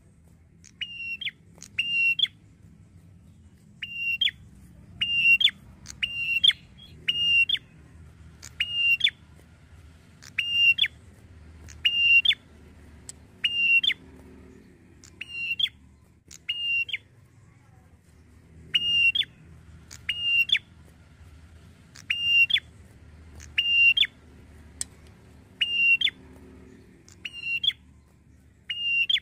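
Ashy tailorbird calling over and over: loud, sharp two-part notes, each a brief high whistle ending in a snapping click, about one a second, some in quick pairs, with a gap of a couple of seconds about two-thirds through.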